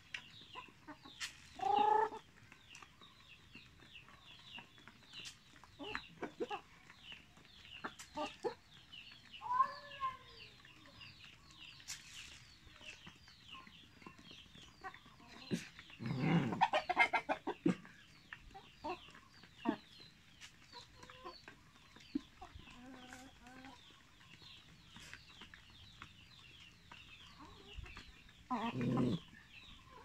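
A flock of Barred Plymouth Rock chickens clucking and calling while they feed, with a few short pitched squawks and many quick clicks of beaks pecking the ground. Two louder, noisier bursts come about halfway through and again near the end.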